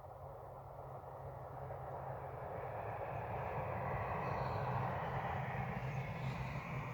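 Electric train approaching, its running noise growing steadily louder.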